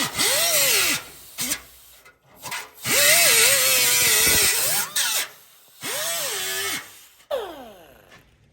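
Handheld power cutting tool cutting in three bursts, its motor pitch sagging under load and recovering. Near the end it spins down with a falling whine.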